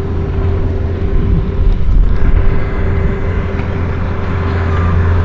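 Vehicle engine running steadily, a low drone with a steady hum above it; a louder rush of noise swells about two seconds in.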